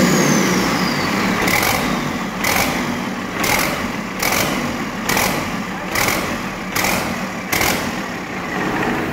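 Cummins 6BT inline-six turbo diesel running on a test stand after a rebuild. A high whine falls in pitch over the first second and a half, and a sharper beat repeats about every 0.8 s as the engine runs on.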